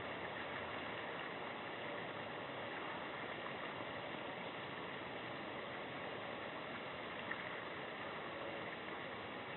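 Steady, even outdoor background hiss, with one faint click about seven seconds in.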